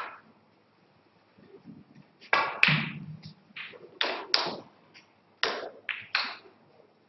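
Irregular sharp knocks and taps, several a second, starting about two seconds in after a quiet stretch, each with a short ringing tail.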